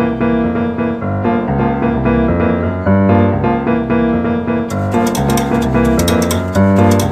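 Background music led by piano or electric keyboard playing a quick, busy melody. About two-thirds of the way in, a crisp high ticking rhythm joins it.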